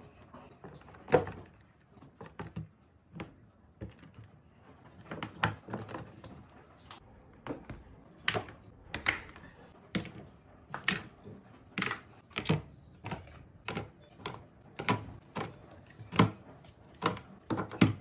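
Storage trays and baskets being handled and set down: a long series of short, sharp knocks and clacks, sparse at first, then about one a second.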